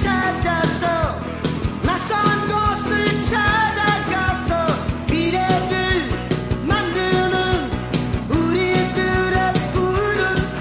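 Rock song with a sung vocal line over a steady drum beat.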